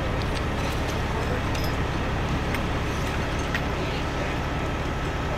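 A running engine with a steady low rumble, accompanied by a faint steady high tone and a few light clicks.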